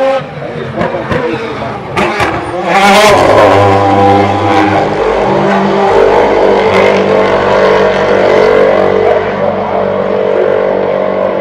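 DTM touring cars' V8 engines at racing revs, swelling up loud about three seconds in as the cars come past close, then holding at full throttle.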